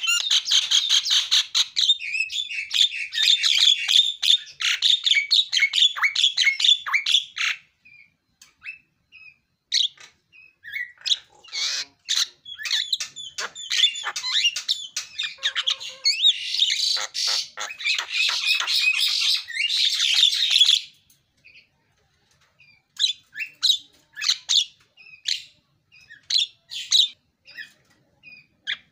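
Javan myna singing loudly: a rapid, varied run of squawks, chirps and whistled notes full of mimicked phrases. It comes in two long dense bursts with scattered notes between them, then a few short separate calls near the end.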